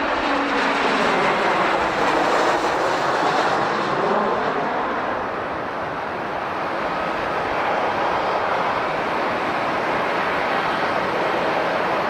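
Jet airliner passing close by, its engine noise a loud, steady rush, with a hum that slides down in pitch during the first second or two.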